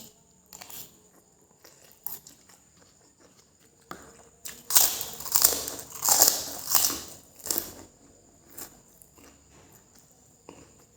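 Close-miked eating: soft mouth clicks, then about four seconds in a run of loud, crunchy chewing bites lasting some three seconds, followed by a few quieter chews.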